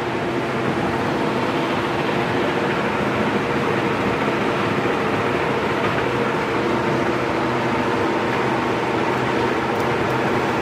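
Angle grinder running steadily, grinding down weld beads on a steel leaf spring.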